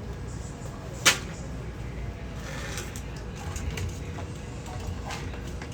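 Handling noises while a drain tube is being fitted to a washing machine: one sharp click about a second in, then a few light knocks and rustles over a steady low hum.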